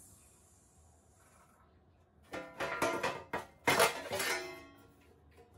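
Thin galvanized steel sheet clattering and rattling against the steel brake as it is handled and set in place. The loudest stretch is in the second half. Background music with plucked strings plays under it.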